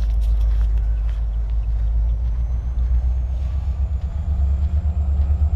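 EMD SD40-2 diesel locomotive's 16-cylinder two-stroke engine rumbling steadily as the train approaches, growing a little louder.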